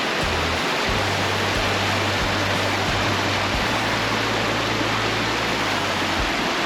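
Rushing creek water running high with spring runoff: a loud, steady, even rush.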